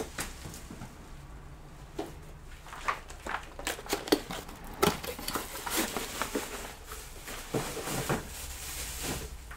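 Off-camera handling while fetching a replacement PC power supply: scattered clicks and knocks with rustling, busiest in the second half.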